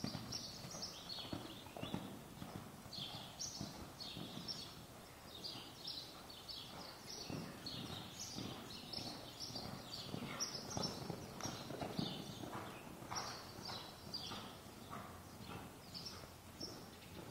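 A ridden horse's hoofbeats on the soft dirt footing of an indoor arena, a run of dull thuds as it moves around the ring, with short high chirps scattered through.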